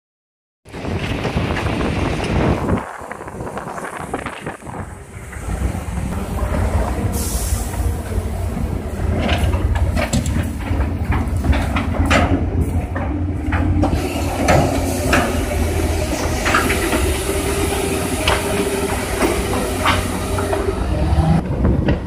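Heavy engine of a wheeled military amphibious bridging vehicle running under load, with a steady low drone and scattered metallic clanks and rattles.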